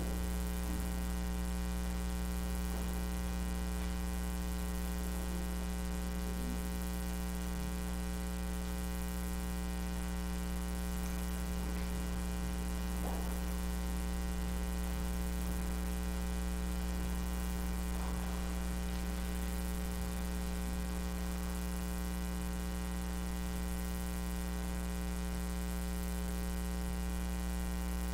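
Steady electrical mains hum with many evenly spaced overtones and a faint hiss, with a few faint brief small sounds.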